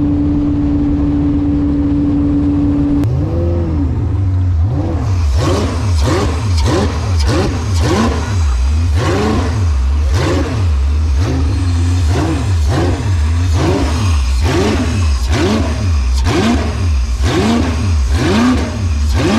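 LS-swapped V8 jet boat engine running at a steady high speed. About three seconds in, its revs start to rise and fall over and over, roughly once a second, with sharp hits in between.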